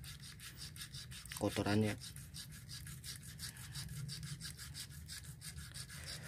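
Size-6000 spinning fishing reel being worked with thread and cooking oil to flush the dirt out of its inside: a fast, even scraping rhythm, about seven strokes a second.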